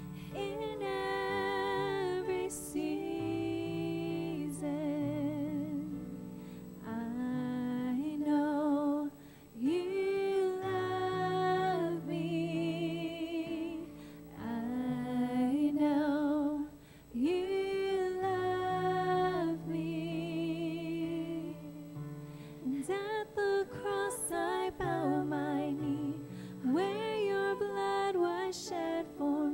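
A woman singing a slow worship song in long phrases, her held notes wavering with vibrato, over keyboard chords held underneath.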